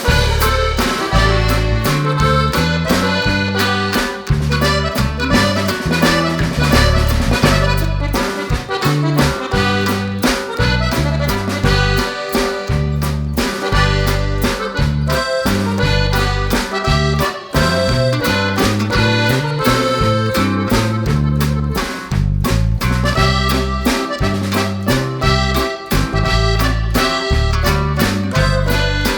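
Background music: an upbeat accordion-led tune with a steady bass beat.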